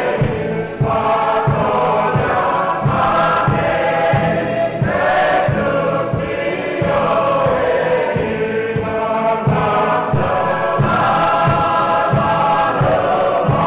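A choir of mixed voices singing a Rotuman song (mak) in harmony over a steady low beat.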